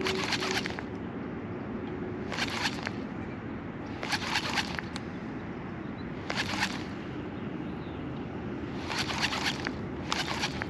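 Baitcasting reel cranked in six short bursts a couple of seconds apart, the stop-and-go retrieve of a jerkbait, over a steady low rumble.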